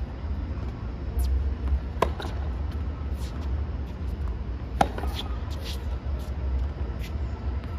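Tennis rally on a hard court: sharp pops of the racket hitting the ball, a strong one about two seconds in and the loudest just under five seconds in, with fainter strikes from the far end. A steady low rumble runs underneath.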